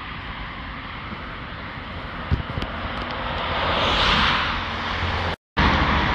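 Road traffic on a four-lane city street: cars passing close by, one swelling up and fading about four seconds in. The sound cuts out for a moment near the end.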